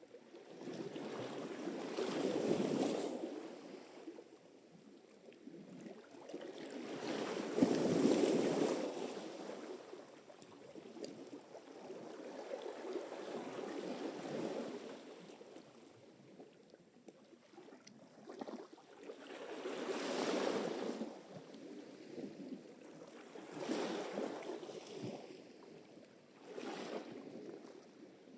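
Sea surf: waves breaking and washing in, the rushing sound swelling and fading every few seconds, with the loudest breakers about 2 and 8 seconds in.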